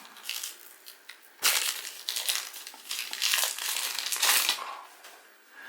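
Plastic trading-card pack wrapping crinkling and crackling as the pack is torn and pulled open by hand, in irregular spurts that are loudest from about a second and a half in and fade near the end.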